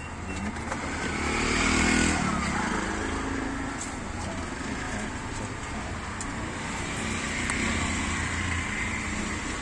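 Street traffic: a motor vehicle's engine passes close, loudest about two seconds in, and a second, quieter vehicle goes by later.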